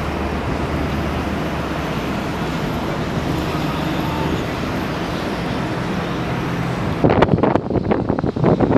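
A Sea Ray Sundancer cruiser runs past at speed, a steady engine drone mixed with the rushing wash of its wake. About seven seconds in the sound changes abruptly to uneven gusts of wind buffeting the microphone.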